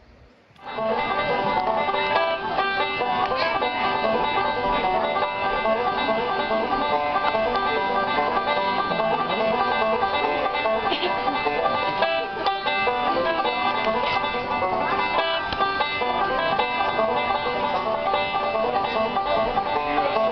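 Background music in a bluegrass style, led by a plucked banjo, starting suddenly about half a second in.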